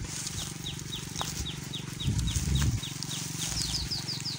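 A bird calling a rapid series of short, high, falling notes, about five a second, with a second, higher series joining near the end. A brief low muffled thumping comes about two seconds in.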